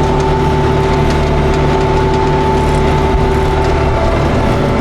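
Tractor engine running steadily under load while pulling a Hesston 1265 mower-conditioner that is cutting hay, with a steady whine from the machine's driveline over a low rumble.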